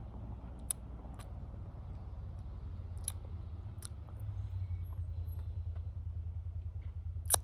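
A steady low rumble that pulses quickly from about halfway through, with a few faint, short high chirps or clicks over it.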